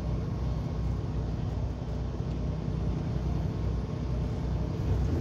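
Steady low rumble of a semi-truck's engine and road noise heard from inside the cab while driving.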